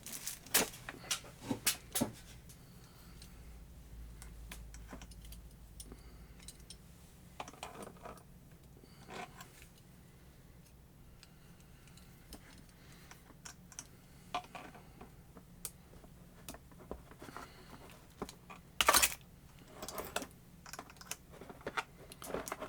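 Pliers and small metal parts of a rotary tool being worked to free a jammed attachment: scattered light clicks and clinks, with a louder clatter near the end.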